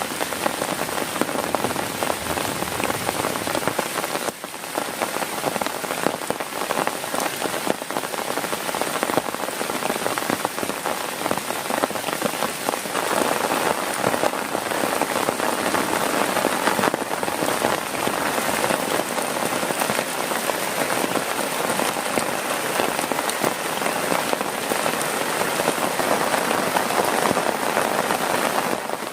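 Heavy rain falling on a tent: a dense, steady patter of drops that grows a little heavier about halfway through.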